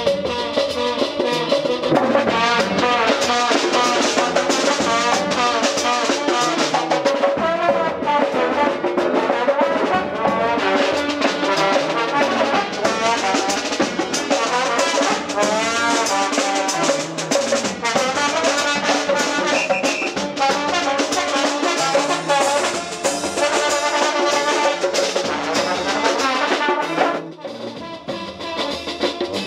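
Live brass band music: tuba, saxophone and trombone playing an up-tempo tune over a drum kit with cymbals. The music dips briefly near the end.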